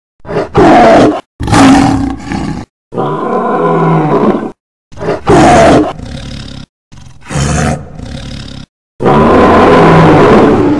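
Dinosaur roar sound effects made for Rajasaurus and Rugops: about six separate loud roars and growls in a row, each one to two seconds long with a short silence between. The last roar is the longest and is held at full loudness.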